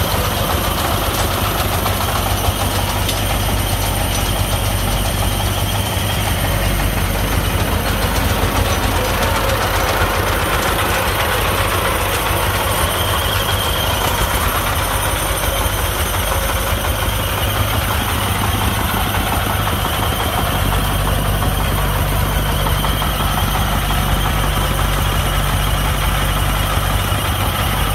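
Single-cylinder diesel engines of công nông farm dump trucks running steadily at close range. A further steady low engine note joins about three quarters of the way through.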